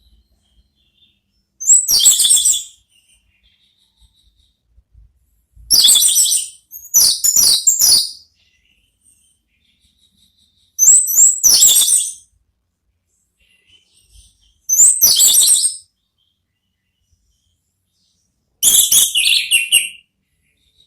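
Orange-headed thrush (anis merah) singing its full, open 'ngeplong' song: six short, loud, high-pitched phrases of about a second each, spaced a few seconds apart, with silence between.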